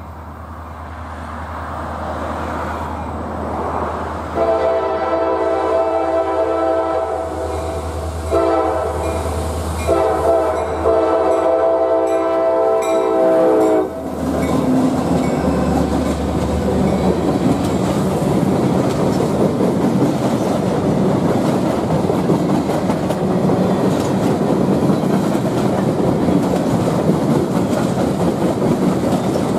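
Diesel freight locomotive's air horn sounding several notes at once in a series of blasts, the last one long, over the growing rumble of the approaching train. Then, from about halfway, the locomotive and freight cars pass close by with a steady rumble and wheel clatter.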